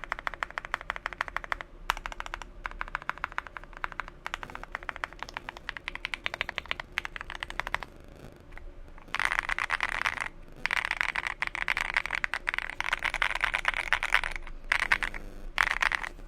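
Typing on a Monsgeek M1 mechanical keyboard with Akko Crystal Silver switches: dense runs of keystrokes with a creamy thock, broken by short pauses. The typing gets louder and faster about nine seconds in.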